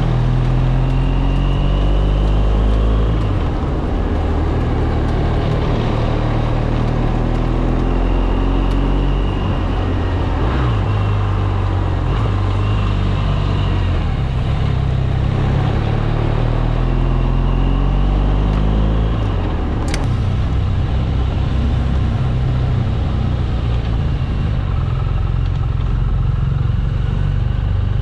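BMW 1200 boxer-twin motorcycle engine running under way, its pitch repeatedly rising and falling as the revs change, over steady wind and road noise. There is a single sharp click about twenty seconds in.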